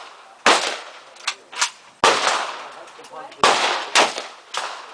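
Gunfire at a shooting range: about five loud shots at uneven intervals and a couple of fainter ones, each trailing off in an echoing tail.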